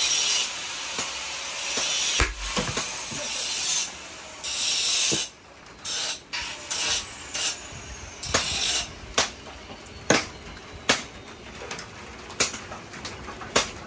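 A machete blade scraping and shaving across a wooden block in a few long hissing strokes. After that come about ten sharp, irregular knocks.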